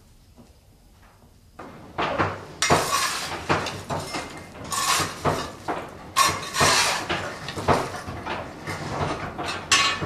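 Blacksmith's hammer striking metal on an anvil: a string of irregular blows, each with a bright metallic ring, starting about a second and a half in.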